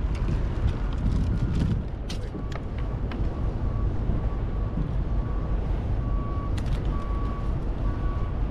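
Wind buffeting the microphone in a steady low rumble, with a few sharp clicks of handling. From about three seconds in, a faint high beep repeats about every two-thirds of a second.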